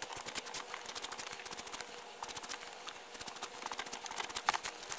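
Sharpie marker scratching and tapping on a pad of sticky notes as letters are written, a quick, uneven run of small scratches, with the paper rustle of notes being lifted off the pad.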